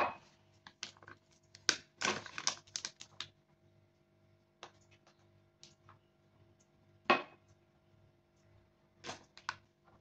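Scattered light clicks, knocks and crinkles of kitchen ingredients being handled: a paper flour bag, a glass and a small packet moved about beside a mixing bowl. There is a cluster of them about two seconds in and a sharper knock about seven seconds in, over a faint steady hum.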